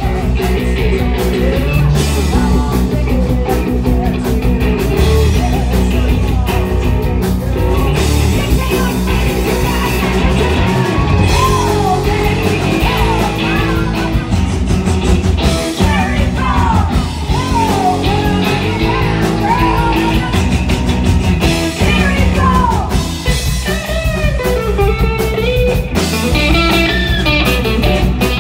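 Live rock band playing loud, with electric guitar, bass guitar, drums and singing.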